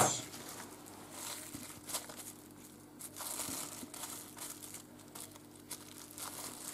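Plastic cling film crinkling faintly as it is peeled off a frozen roll of smoked salmon and cream cheese, with a faint steady low hum underneath.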